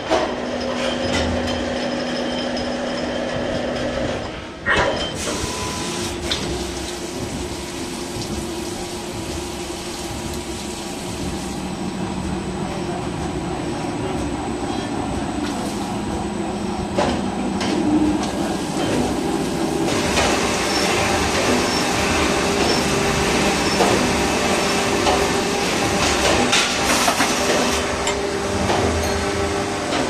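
CNC lathe turning a stainless steel hose connector under flood coolant: steady machine noise from the spindle and cut with coolant splashing, its tones shifting as the cut changes, and a sharp knock about five seconds in.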